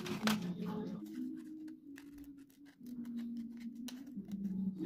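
Scissors snipping through paper in a run of short cuts, most of them near the end, over soft background music with sustained low notes.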